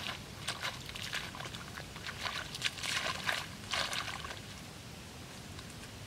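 A hoe chopping and scraping into wet mud, a run of irregular wet slaps and squelches that stop about four seconds in.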